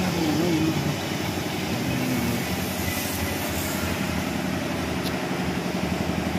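Motor-driven workshop machine running steadily: an even mechanical hum with a rapid, regular pulsing.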